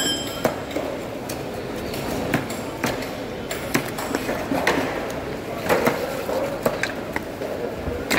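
Background voices at a fish-cutting stall, with irregular sharp knocks and clicks about once a second, like blades and hands striking wooden chopping blocks.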